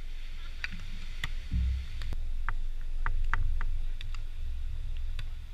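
Wind buffeting the microphone, a low rumble that swells and fades, with about ten short sharp clicks and brief high chirps scattered through it.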